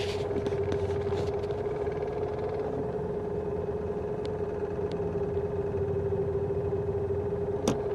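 Citroën 2CV's air-cooled flat-twin engine running with a steady, unwavering whining tone over it, the strange noise the owner links to the clutch. A single sharp click sounds near the end.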